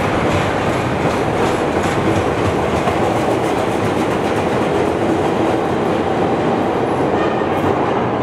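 Mixed Budd 2600-series and Morrison-Knudsen 3200-series rapid-transit train pulling out of an underground station: a loud, steady rumble of wheels on rail, with clicking of wheels over the track in the first few seconds.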